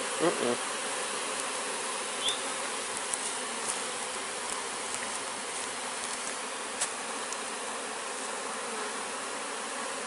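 Swarm of honey bees buzzing steadily all around, a dense, even hum with a couple of faint ticks. The bees have just been shaken into a new hive and are disturbed, pouring out of the entrance.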